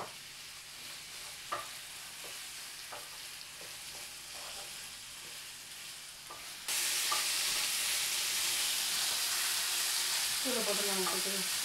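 Shrimp, onion and curry leaves frying in oil, stirred with a wooden spatula: a light sizzle with scattered clicks of the spatula against the pan. About two-thirds of the way in it jumps abruptly to a louder, steady sizzle.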